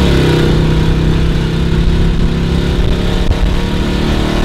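Car engine heard from inside the cabin while driving. Its note rises briefly near the start, then holds a steady drone over low road rumble.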